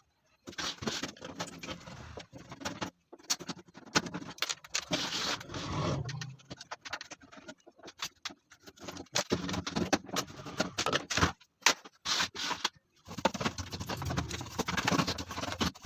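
Scraping, clicking and rattling of the Microtek 850VA inverter's cover being opened by hand, in stop-start bursts with short pauses.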